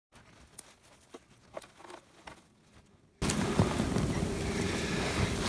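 Spruce boughs being handled and pushed into the front of a wooden marten box. There are faint scattered clicks and snaps at first, then from about three seconds in louder rustling with a few sharp knocks.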